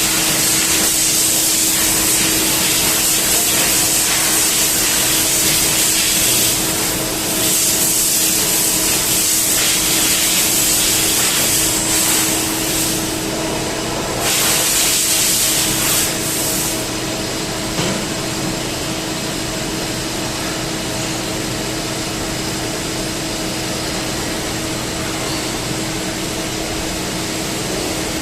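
CNC turning lathe running, with a steady hiss over a constant machine hum. The hiss is heavier for the first part and drops to a lower, even level about two-thirds of the way through.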